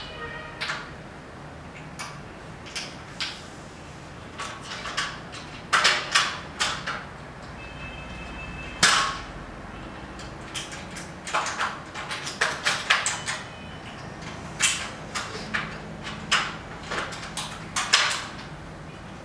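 Frame sections of a fixed-frame projection screen being handled and joined at the corners by hand: irregular clicks, knocks and scrapes, the loudest about six and nine seconds in.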